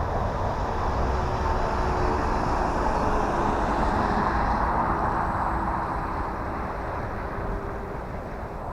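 Electric brushless motor and propeller of an E-flite T-28 Trojan RC plane running on a 3S battery in flight, a steady buzz that swells about three to four seconds in and then slowly fades. A low rumble runs underneath.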